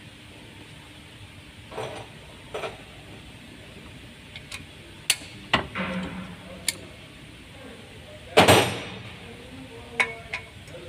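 Steel hand tools, a socket wrench and extension, clinking and knocking against metal while the turbocharger's bolts are worked loose: scattered sharp clicks, with one louder ringing clank about eight seconds in.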